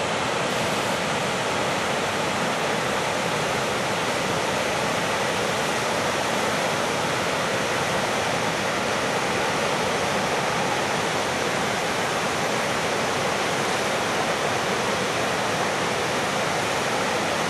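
Waterfall and river rapids: a steady, unbroken rush of water with no change in level.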